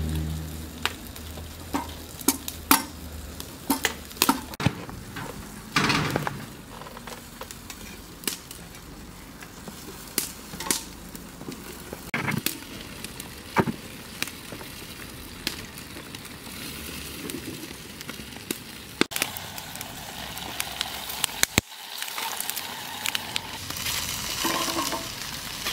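Food sizzling as it fries: a steady hiss broken by scattered sharp clicks and knocks of stirring.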